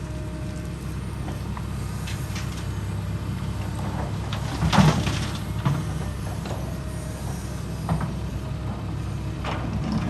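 Heavy construction machinery engine running steadily, with a few sharp clanks and knocks, the loudest about five seconds in and smaller ones later.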